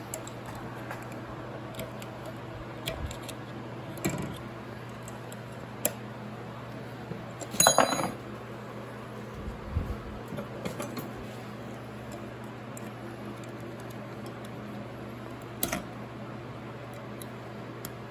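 Light metal clicks and scrapes as a screwdriver pries a snap ring out of a Powerglide clutch drum, with a louder metallic clatter about eight seconds in. A steady low hum runs underneath.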